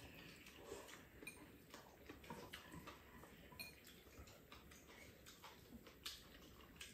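Faint, scattered clicks of chopsticks against bowls while two people eat noodles, with quiet eating noises between them.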